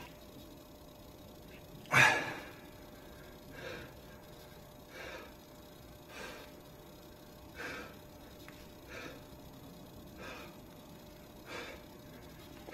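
A man breathing out forcefully in rhythm with dumbbell side lateral raises, one short puff of breath about every second and a half. One loud, sharp sound about two seconds in stands out above the rest.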